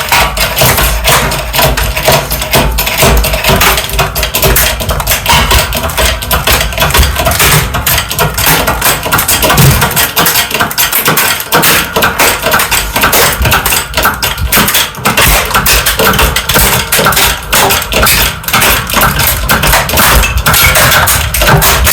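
HP Color LaserJet M255dw printer being crushed in a hydraulic press: its plastic housing and parts crack and pop in a dense, continuous run of snaps and clicks.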